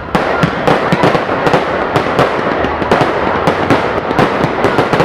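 Fireworks going off in a dense, loud barrage of rapid, overlapping bangs and crackles, with no let-up.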